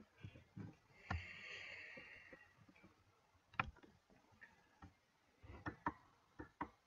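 Faint, irregular clicks at a very low level, with a short soft hiss about a second in.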